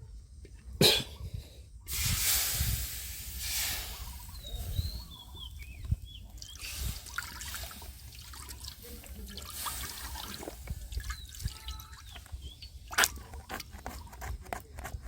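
Liquid trickling, dripping and splashing, with a sharp click about a second in and scattered knocks, typical of handling soup stock in a cooking pot.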